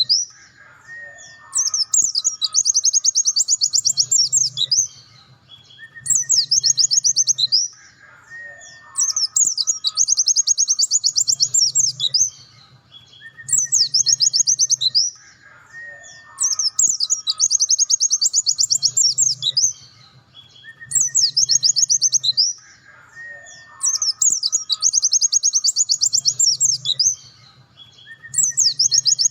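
Pleci dakun white-eye singing its rapid 'nembak' song: fast, high trilled bursts one to three seconds long, repeating every three to four seconds with short pauses between.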